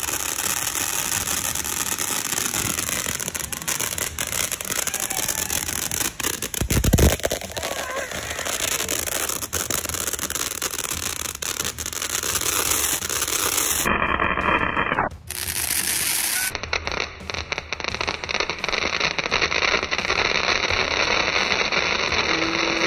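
Ground fountain fireworks hissing and crackling as they spray sparks, with a louder thump about seven seconds in.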